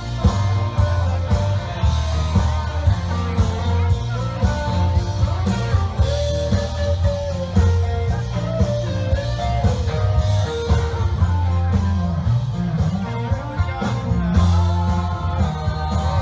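Background music: a rock song with a sung vocal over guitar and a steady heavy beat.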